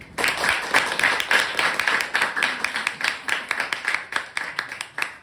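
Audience clapping after a song ends, dense at first and thinning out to scattered claps toward the end.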